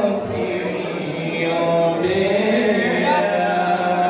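Male voices chanting a religious song through microphones, with long held notes over a low sustained tone.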